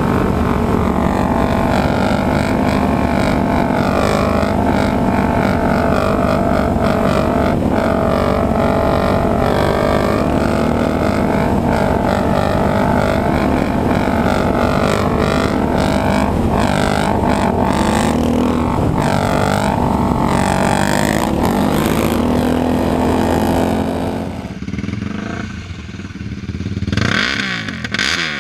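Yamaha sport quad engines running hard at speed, the engine note rising and falling with the throttle. Near the end the engine drops to a lower level as the quad slows to a stop, then is revved a few times, the pitch rising and falling.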